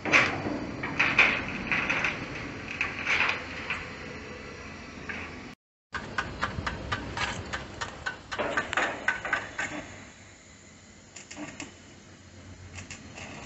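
Sharp metallic taps and knocks of hand tools working at the seam of a motorcycle's steel muffler and catalytic-converter box, in irregular runs, growing sparser and quieter in the last few seconds.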